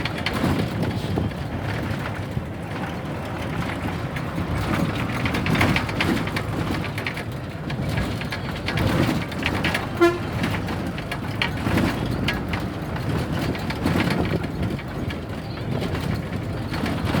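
Tamil Nadu government bus running along the road, heard from on board: steady engine and road noise with rattling. A short horn toot about ten seconds in.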